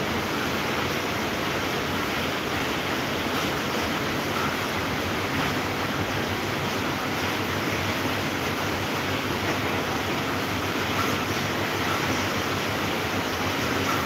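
Small electric table fan running: a steady rush of moving air.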